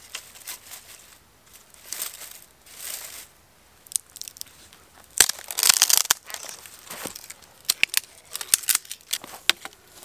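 Dry twigs and branches being handled: brittle brush rustling and crackling in short swishes, a louder rustle about halfway through, then a run of sharp cracks and snaps over the last few seconds.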